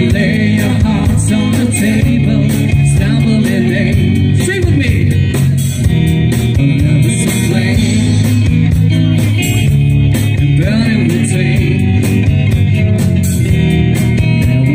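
Live rock band playing loud through the PA: electric guitars and bass over a drum kit with steady cymbal and drum strokes.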